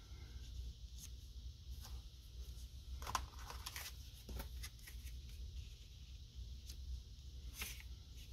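Faint rustling and light taps of cardstock being slid, picked up and laid down on a cutting mat, strongest about three seconds in.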